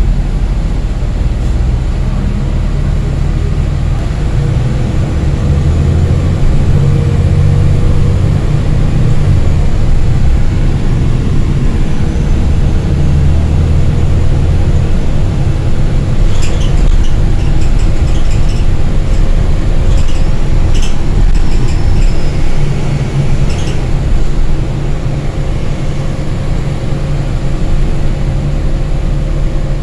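New Flyer city bus heard from inside the passenger cabin while riding: a steady low engine and drivetrain drone that rises and falls as the bus speeds up and slows. In the second half there is a spell of light rattling clicks.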